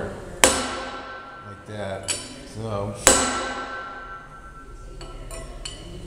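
Two hammer blows on a steel bar used as a caulking tool, driving a bend out of a sheet-metal drum switch cover against a heavy steel table. The first comes about half a second in and the second about three seconds in. Each strike gives a sharp metallic clank that rings on and fades.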